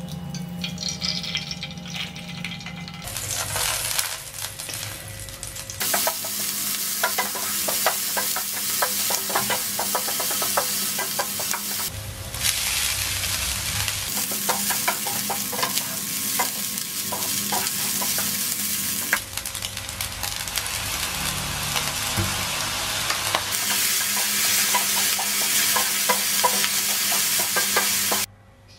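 Vegetable fried rice sizzling in a non-stick frying pan while a spatula stirs and scrapes it in many quick clicks. The sizzle breaks off and starts again abruptly several times.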